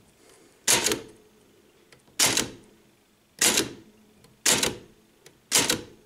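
Antique manual typewriter typed slowly, one key at a time: five single keystrokes about a second apart, each one a type bar striking the platen.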